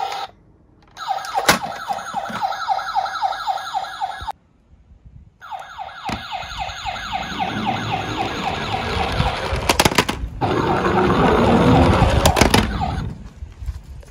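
Toy car's electronic siren: a fast warbling yelp of about five rising sweeps a second, cutting off twice and starting again. In the second half it plays over a rumbling rattle of toy cars rolling down a slope, with a few sharp clicks.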